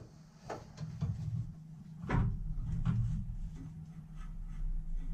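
A few dull knocks and a louder clunk about two seconds in, followed by low rumbling handling noise, as a heavy cylinder head is eased down onto the Honda Pilot's V6 engine block.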